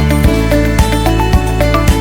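Background music with a steady beat, sustained bass notes and a melody.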